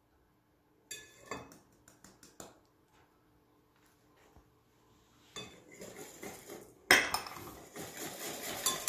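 Wire whisk beating cake batter in a glass mixing bowl, the wires clicking against the glass. A few light clinks come in the first seconds while lemon zest is tipped in from a small ceramic bowl; the whisking picks up after about five seconds and turns into fast, continuous clicking after a sharp clink about seven seconds in.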